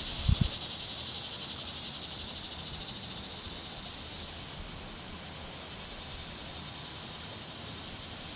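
Cicadas in a steady, high-pitched chorus that eases off slightly after about three seconds, with two brief low thumps just after the start.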